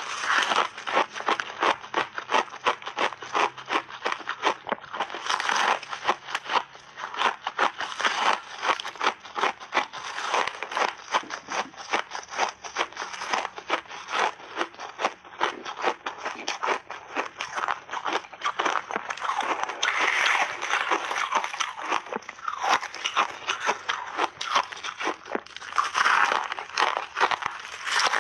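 Hard refrozen ice being bitten and chewed: a dense, continuous run of sharp cracks and crackles, many a second, with louder clusters every few seconds as new bites are taken.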